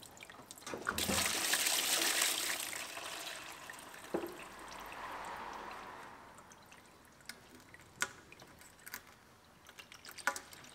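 Red engine coolant pouring from a loosened hose connection into a plastic drain pan. The stream splashes heavily from about a second in, eases to a trickle and dies away after about six seconds. A few light clicks follow near the end.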